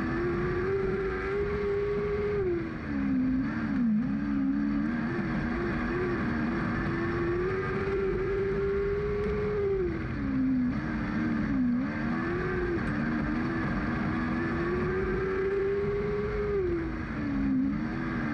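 Lightning Sprint car's engine heard from on board, held high on the throttle and then dropping and climbing back in pitch three times as the driver backs off for the turns and gets back on the power, lap after lap.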